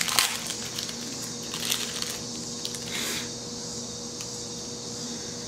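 Small plastic jewelry bag crinkling as it is torn open and handled, with several sharp crackles in the first three seconds, then only a faint steady hiss.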